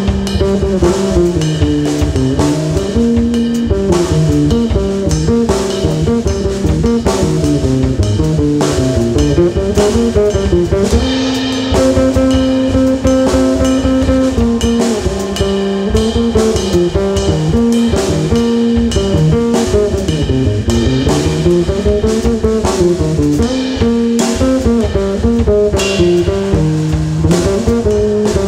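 Free jazz improvisation: an electric bass guitar plays a busy, winding melodic line over a drum kit and cymbals, with one longer held note about halfway through.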